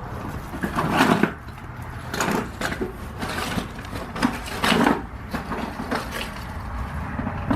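Tools scraping and knocking at a door lock in irregular bursts, with a sound like wood being scraped and splintered.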